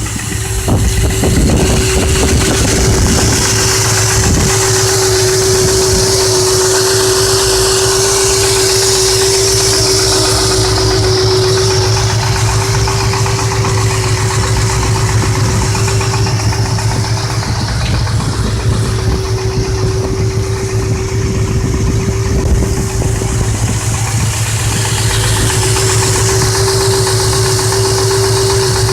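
Ford 5.4-litre four-valve DOHC V8 idling steadily with a connecting-rod knock, with a steady whine running over it. The knock is still there after new timing chains, guides, tensioners and oil pump; the owner takes it for a spun rod bearing.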